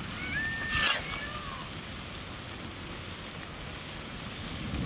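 Prawn masala sizzling steadily on a hot iron tawa over a wood fire. There is a short, louder burst of noise about a second in, and a bird chirps a few times in the first second.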